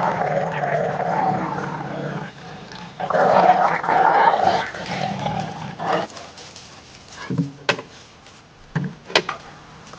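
Dog growling in play over a toy during a game of fetch: two long rough growls, the second from about three seconds in, then a few short noises near the end.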